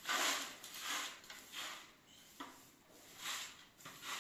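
Short straw hand broom sweeping a tiled floor: about six brisk swishing strokes, with a light knock about halfway through.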